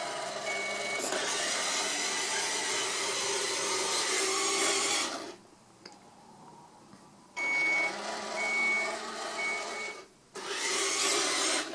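Robie toy robot's drive motors and gears whirring as it moves over carpet, in three runs broken by short pauses about five and ten seconds in. Its reversing sensor beeper gives one short high beep near the start and three more, about a second apart, during the second run while it backs up.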